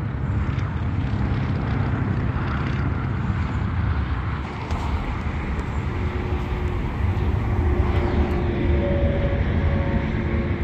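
Diesel locomotives of a slow freight train some way off, a steady low rumble as the train slows to a stop. Faint steady tones come in during the second half.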